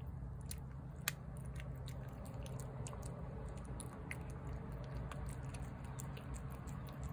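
A cat eating wet cat food from a plate, close up: quick, irregular wet chewing and smacking clicks, with one sharper click about a second in. A steady low hum runs underneath.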